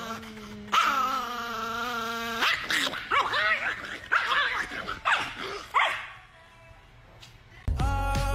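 A man and a Chihuahua howling together in one long held note, after which the Chihuahua breaks into a string of short, sharp yaps and barks. Music cuts in near the end.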